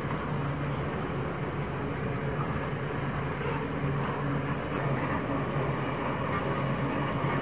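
Freight wagons rolling slowly over the iron spans of a viaduct: a steady rumble with a low hum underneath.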